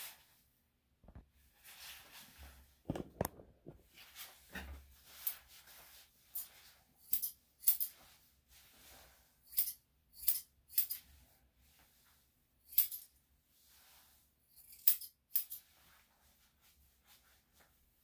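Grooming scissors snipping through a dog's long coat, one sharp metallic snip at a time at irregular intervals, growing sparser in the last few seconds.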